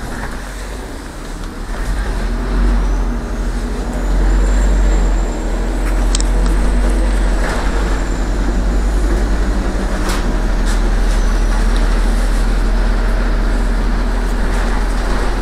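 A MAZ city bus's diesel engine running, heard from inside the passenger cabin as a deep, steady drone that grows louder about two seconds in, with a few short knocks and rattles.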